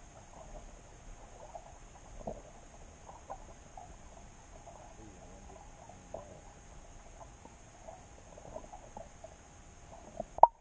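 Underwater ambience picked up through a submerged camera: faint scattered ticks and clicks over a steady hiss, with a sharp loud knock near the end.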